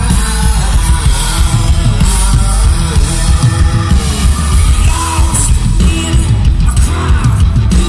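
Live rock band playing loud, with electric guitar, drums, keyboards and a singer; the sound is heavy in the bass.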